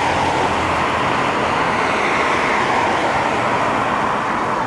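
Cars passing close by on a wet road: a steady rush of tyre noise on wet tarmac that swells slightly in the middle.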